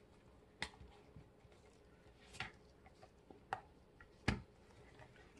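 Four scattered soft taps and clicks, the last the loudest, as round melt-and-pour soap bars are pushed out of a silicone mold and set down on a mat.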